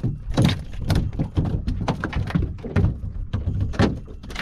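Irregular knocks and thunks on a small aluminium boat's hull, over a low rumble of wind on the microphone.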